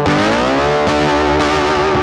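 Background music: distorted electric guitar with a lead line that slides upward in pitch near the start, over held low notes.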